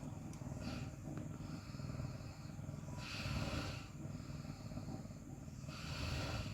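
A house cat purring close up: a low, continuous rumble that swells with its breaths, about every three seconds.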